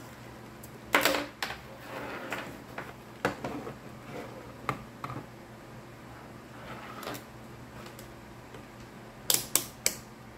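Knocks and rattles of an analog multimeter being set down on a bench and its test leads handled, then three quick clicks near the end as its rotary range selector is turned.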